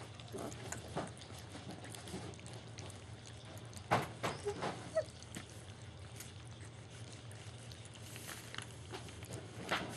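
German Shepherd puppies lapping and smacking at wet puppy food in a shallow pan, with scattered small wet clicks and a couple of short squeaks about four to five seconds in, over a steady low hum.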